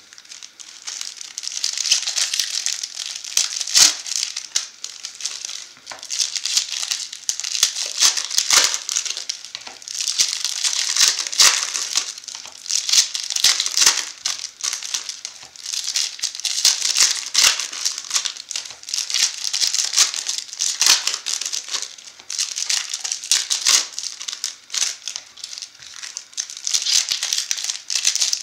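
Foil wrappers of Bowman Chrome trading-card packs crinkling as they are handled, in repeated bursts every two to three seconds with sharp crackles.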